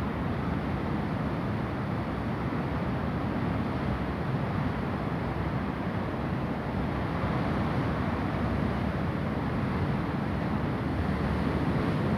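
Rough sea: a continuous roar of heavy surf breaking on the shore, mixed with wind rumbling on the microphone, growing a little louder near the end.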